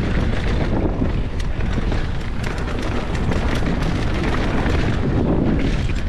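Mountain bike ridden fast down a dirt trail, heard on the rider's camera: a constant heavy rumble of wind buffeting the microphone, with many small clicks and knocks from the bike rattling over rough ground.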